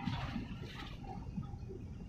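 Harbour background noise: a steady low rumble with a faint hiss above it, and a short rush of higher noise in the first second.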